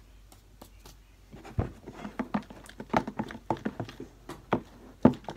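Slime mixture being stirred in a plastic tub with a utensil: a run of quick, irregular clicks and taps that starts about a second and a half in.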